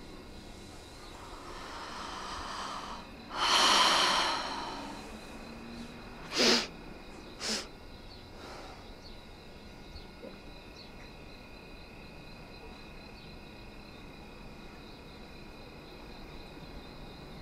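A woman draws a long breath in and lets it out in a heavy sigh, then sniffs sharply twice, about a second apart.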